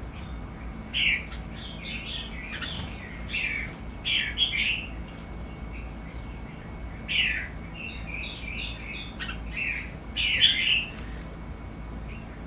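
Captive red-whiskered bulbuls singing: short, bright, warbling phrases in quick clusters, one bird answering another, with gaps of a second or two between clusters.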